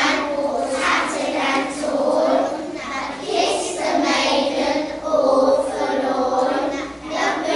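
A group of young children singing together in unison.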